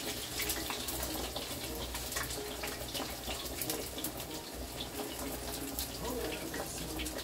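A pot of water at a full rolling boil alongside hot oil crackling in a frying pan, a steady bubbling hiss scattered with small pops.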